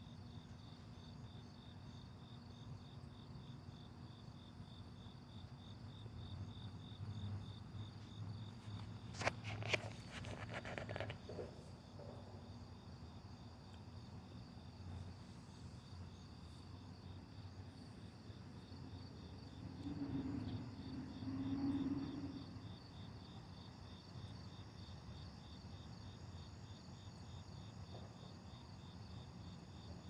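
Crickets chirping in a steady, pulsing high trill over a low rumble of distant traffic. A few sharp clicks come about ten seconds in, and a low hum swells and fades around twenty seconds in.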